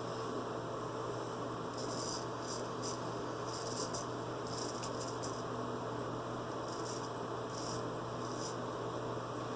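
Straight razor strokes cutting lathered stubble: a series of short, scratchy rasps at irregular intervals, over a steady electrical hum.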